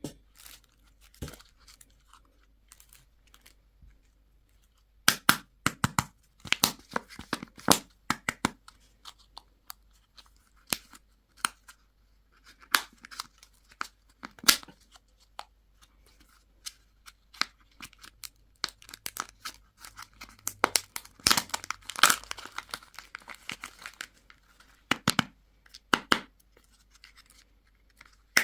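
Candy and toy packaging being torn open and crinkled by hand: irregular bursts of crackling and tearing, sparse at first and busiest about twenty seconds in.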